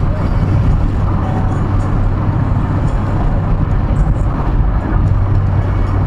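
Steady road and engine rumble inside a car's cabin at highway speed, about 100 to 114 km/h, with a constant low hum under the tyre noise.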